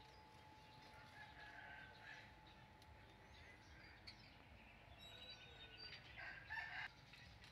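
Faint animal calls: short, scattered chirping calls, with a louder cluster about six seconds in.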